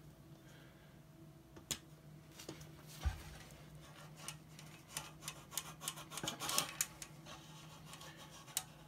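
Greased metal transmission shaft of a top-load washer being slid up through new rubber shaft seals in the tub base: rubbing and scraping, one knock about three seconds in, then a run of small metal clicks and scrapes between about five and seven seconds as the parts are worked into place, over a low steady hum.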